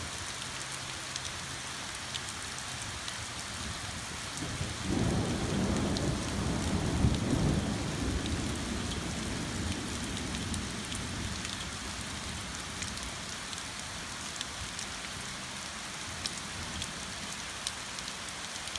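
Steady rain falling through oak trees onto grass, with scattered drips ticking. About four and a half seconds in, a low rumble of distant thunder swells, peaks and fades away over about six seconds.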